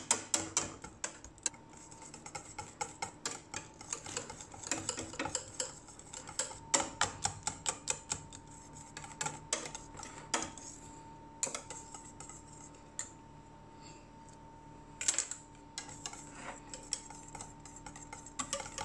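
Wire whisk clicking and scraping against the sides of a small stainless steel saucepan, stirring hot pastry cream to melt chocolate into it. The taps come in quick, uneven runs, thin out for a few seconds past the middle, then pick up again with one louder knock.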